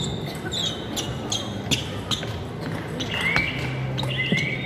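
Celluloid table tennis ball clicking off bats and table in a rally, a sharp tick every few tenths of a second with a short ring after each. Short rising squeaks come in the second half, like sports shoes on the hall floor.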